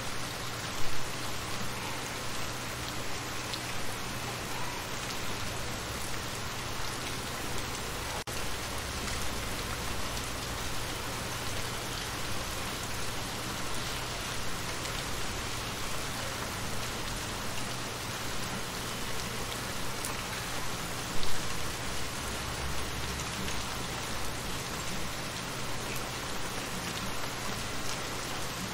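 Steady rain falling on shallow water, a dense patter of drops splashing on the surface. Two brief louder thumps come through, about a second in and again about twenty-one seconds in.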